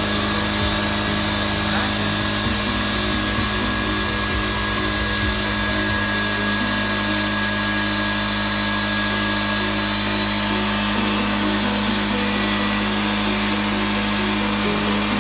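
Stanley electric air compressor running steadily, a constant hum over a dense mechanical rattle and hiss.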